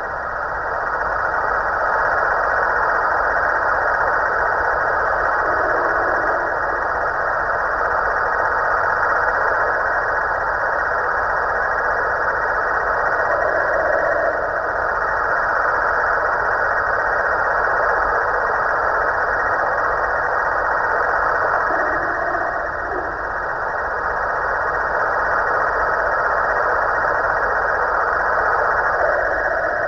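Snoring sound from a Halloween pumpkin decoration, played through a small speaker: a steady, noisy drone with slow, slight swells in loudness.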